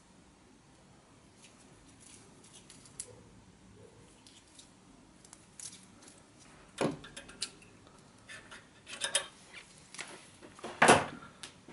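Scattered metallic clinks and clatter of tools being handled off to the side, with two louder knocks about seven and eleven seconds in.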